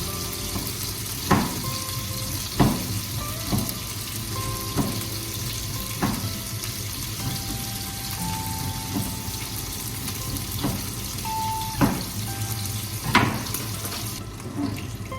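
Steady running water with several sharp clinks and knocks spread through it. Soft background music plays with held notes.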